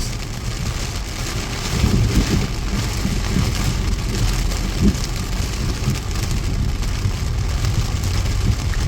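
Heavy thunderstorm rain pouring down steadily, with a continuous low rumble underneath.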